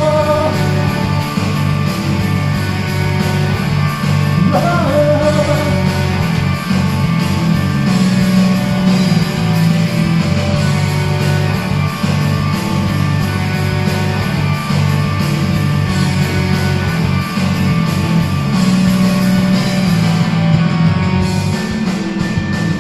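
Instrumental interlude of a rock band backing track: electric guitars and drums playing on steadily between sung verses.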